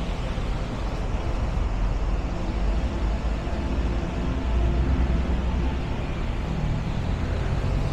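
City street traffic: a steady low rumble of vehicles on the avenue, with a faint held engine hum through the middle.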